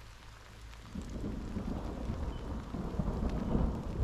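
Heavy rain pouring down, with a low rumbling that swells from about a second in and keeps growing louder.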